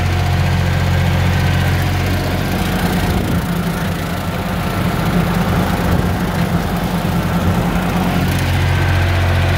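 A compact tractor's engine runs steadily while driving a rotary slasher through long grass. Its note shifts upward for several seconds in the middle and then settles back.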